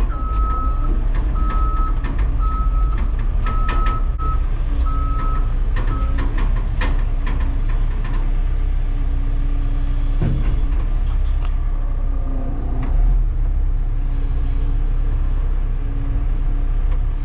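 Caterpillar hydraulic excavator's diesel engine running steadily, heard from inside the cab. A high-pitched alarm beeps in short pulses for the first six seconds or so, with scattered clicks.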